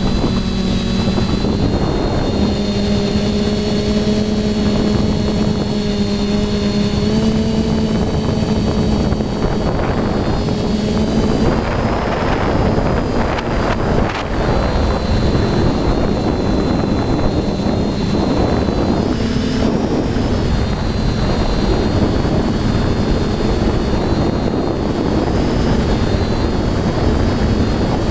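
Quadcopter's brushless motors and propellers running steadily, heard from its own onboard camera, their pitch stepping up and down with the throttle over a constant rush of wind noise.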